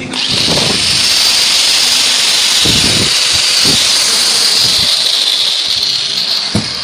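DeWalt 801 angle grinder running free at full speed with its newly replaced bearing: a steady, loud, high rushing hiss that switches on abruptly and eases slightly near the end, with a few dull low thumps.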